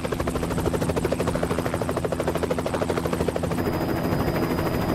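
Helicopter flying close by, its rotor beating in a rapid, even chop. About three and a half seconds in the sound shifts: the chop becomes less distinct and a thin, high steady whine comes in.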